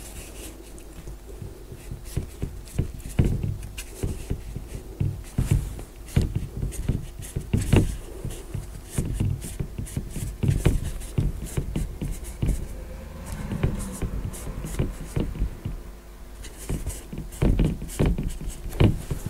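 Marker pen tapping and making short ticking strokes against a writing board at irregular intervals, with occasional soft low thuds.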